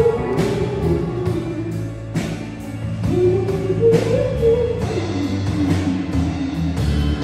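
Live band music: a drum kit keeping a steady beat under a bending melody line, with other instruments filling in.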